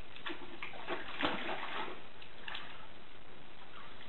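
Water running steadily, with some splashing, like a bathtub filling.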